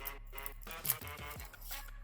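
Background music with a steady beat and sliding bass notes that fall in pitch.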